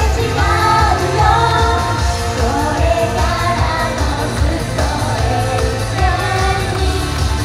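Japanese idol pop song performed live: female group vocals sung into microphones over pop music with a steady pulsing bass beat.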